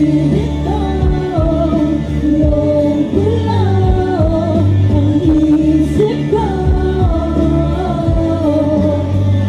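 Amplified live music over a PA system: a woman sings a melodic hook into a handheld microphone over a backing track.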